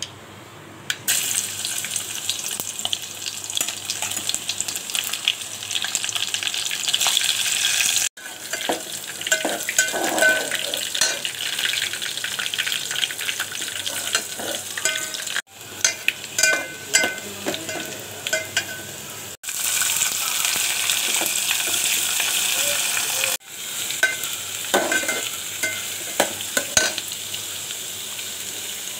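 Spice tempering and chopped vegetables frying in hot oil in a steel pot, with a spoon stirring and scraping against the pot. The sizzle jumps up about a second in and breaks off for an instant four times.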